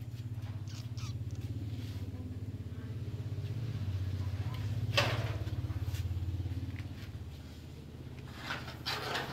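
A motor vehicle's engine, a low steady hum that grows louder to a peak about halfway through and then fades away, like a vehicle passing close by. There is a sharp click at its loudest point and a few short scuffing sounds near the end.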